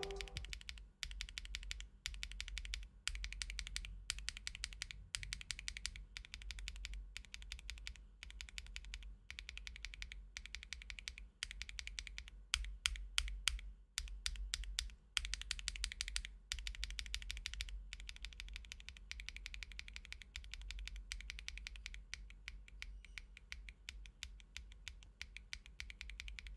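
Typing on a mechanical keyboard fitted with Kailh Snow Cocoa linear switches (POM top housing and stem, BA66 bottom housing, 45 g bottom-out): fast runs of keystrokes, with a few slower single presses about halfway through.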